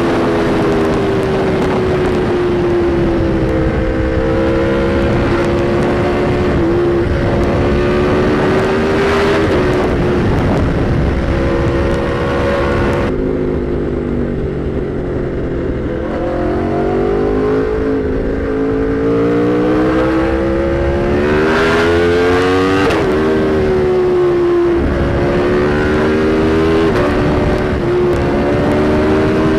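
Aprilia RSV4 Factory's V4 engine through an SC-Project CRT exhaust, heard from on the moving bike with wind rush underneath. The engine pitch climbs and drops back in steps as the rider works the throttle and shifts gears, easing off around the middle before climbing hard again.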